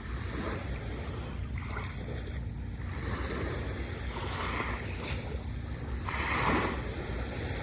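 Small waves breaking and washing up a sandy beach, with the louder wash of a wave about six seconds in over a steady low rumble of surf and wind on the microphone.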